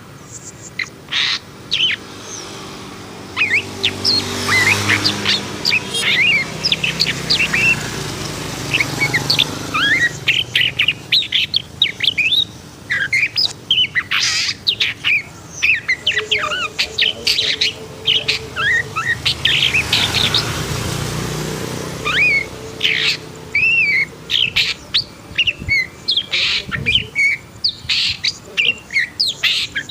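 Long-tailed shrike (pentet) singing a rapid, unbroken string of short chirps and whistles, the fired-up ('emosi') song bird-keepers prize. A low background rumble swells and fades twice under the song.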